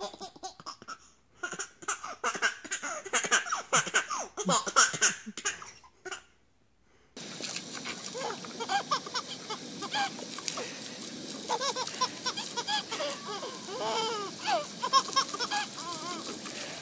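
A baby laughing in repeated bursts of giggles. About seven seconds in, after a short pause, a garden hose sprays with a steady hiss while laughter rises and falls over it.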